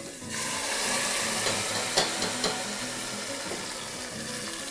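Tomato purée poured into hot oil in a stainless steel pot, sizzling sharply as soon as it hits, from about a third of a second in, then easing slightly. Two light knocks come about halfway through.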